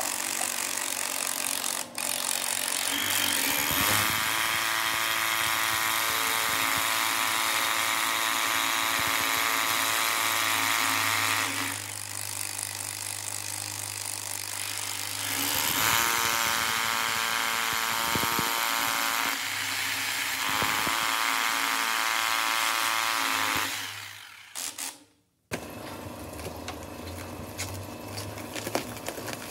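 Electric woodworking power tools running with a steady motor hum that changes pitch and loudness at several points. The sound breaks off to about a second of silence near the end, then a quieter motor sound carries on.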